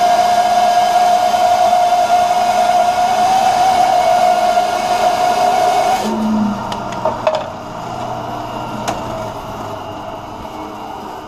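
Rikon bandsaw running steadily with no load, switched off about six seconds in, then a lower hum as it winds down, with a few sharp knocks of wood being handled.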